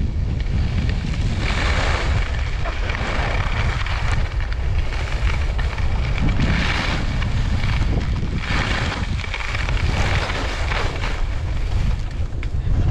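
Wind rumbling on a GoPro Hero 8 Black's microphone during a downhill ski run, with the hiss of skis carving across groomed snow swelling several times as the skier turns.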